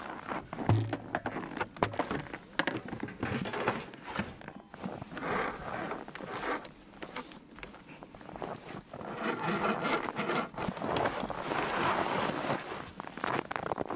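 Rasping scrapes and crunches in snow: boots tramping through snow and things being dragged and scraped across a snow-covered wooden sled, with many small clicks and knocks.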